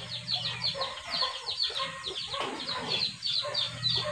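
Chickens calling in the background: a steady run of short, high, falling peeps, several a second.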